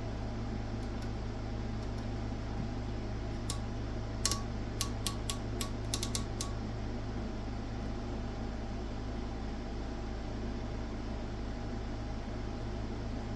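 Steady hum of a running oscilloscope's fan and mains transformer. About three and a half seconds in comes a quick run of about ten sharp clicks lasting some three seconds, as the scope's switch knobs are turned through their detents.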